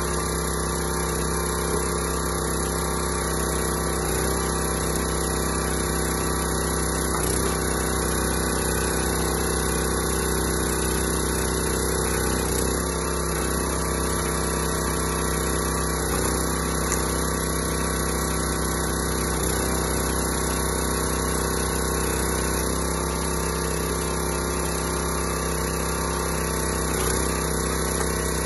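Small gas engine of a hydraulic log splitter running steadily, driving the pump while the ram pushes logs through the wedge.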